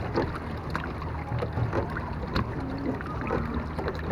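Small boat under way on the water: a steady low hum with scattered light clicks and knocks.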